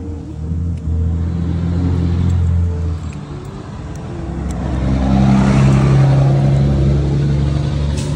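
Road traffic on a busy street: car engines running steadily, then a vehicle passing close that grows loudest about five to six seconds in.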